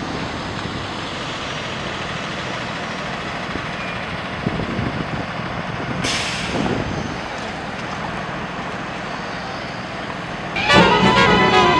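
Steady city street traffic noise, with a sharp hiss about six seconds in that fades away over about a second. Music comes in near the end.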